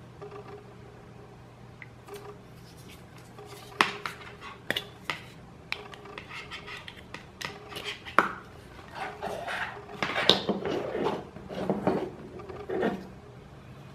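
Hands handling a Chromecast's plastic power adapter and USB cable. Sharp plastic clicks come a few seconds in as the USB plug is worked out of the adapter, then a stretch of rubbing and scraping as the cable is handled near the end.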